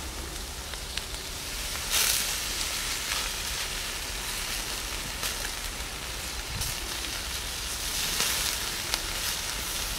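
Pork belly sizzling steadily on a wire grill, with scattered sharp pops of fat and a louder surge of sizzling about two seconds in. The sizzle swells again near the end as sauce is brushed onto the meat.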